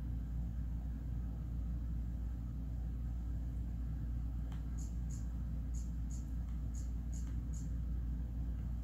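A Balinese cat licking a chihuahua's head and fur: soft, short tongue-rasp clicks, about three a second, starting about halfway through, over a steady low rumble.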